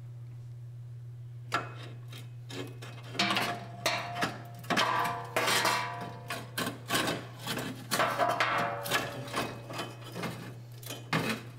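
Steel fuel tank strap being worked up into place under the truck: irregular metal clanks, knocks and scraping, some with a short ringing, over a steady low hum.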